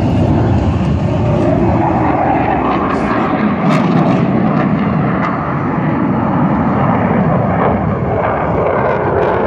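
Loud, steady jet engine noise from a fighter jet flying past overhead and banking away.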